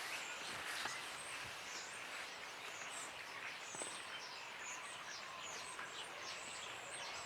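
Small birds chirping repeatedly in the background over a steady outdoor noise haze, with a few faint clicks.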